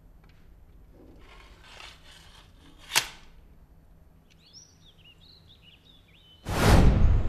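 Soft rustling, then a single sharp snap about three seconds in. After it come a few seconds of birds chirping, and near the end a sudden loud rushing whoosh.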